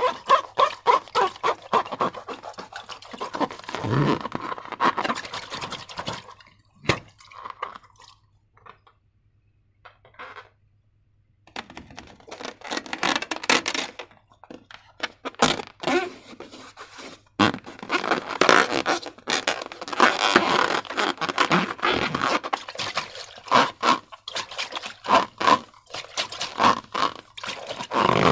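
Sticky slime being squeezed and worked by hand, giving rapid wet clicks and crackles, with a pause of a few seconds in the middle.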